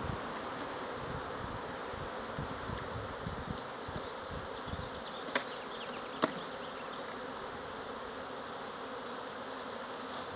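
Swarm of bees buzzing in a steady, even hum, with two sharp clicks a little past halfway.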